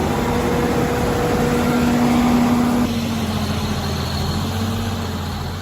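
Heavy logging machine's diesel engine running steadily. About three seconds in, its note changes and it turns a little quieter.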